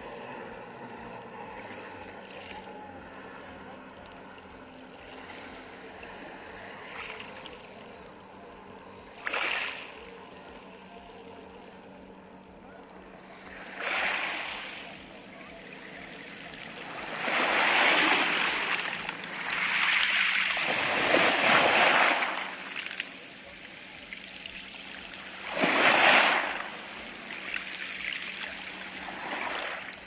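Small sea waves washing up over a pebble beach and draining back through the stones, in several separate surges a few seconds apart with a quieter wash in between; the biggest come about two-thirds of the way through.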